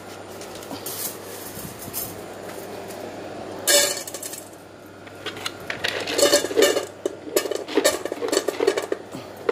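Dry dog kibble poured into a pet bowl, rattling and clinking for the last few seconds, after one sharp clatter about four seconds in.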